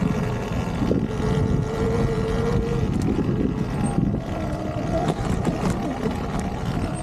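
Surron Ultra Bee electric dirt bike being ridden: a motor whine that drifts up and down in pitch over a rough low rumble and knocking.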